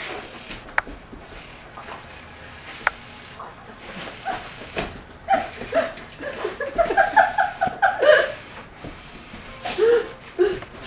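People laughing in quick runs of short notes, loudest a little past the middle, while a dog plays with a small remote-control toy car on carpet. Two sharp clicks come in the first three seconds.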